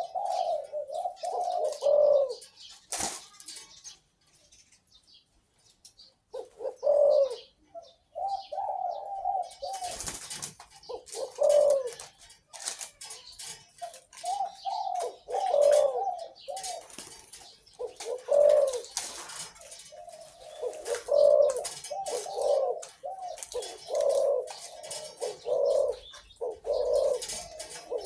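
A caged, captive-bred dove cooing in repeated, rolling phrases, with a pause of about two seconds early on. A few sharp clicks sound between phrases.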